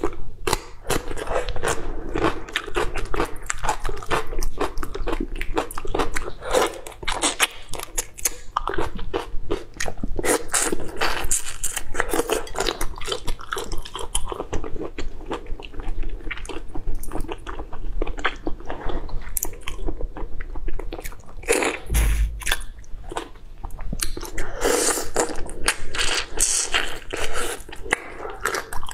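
Close-miked eating sounds: dense, crisp crunching and wet chewing as pieces of raw vegetable and soy-marinated raw shrimp are bitten and chewed. One dull low thump about three-quarters of the way through.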